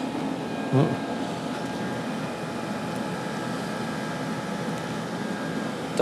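Diesel heater running at full burn: a steady blower-and-burner rush with faint steady whining tones. A brief low sound about a second in.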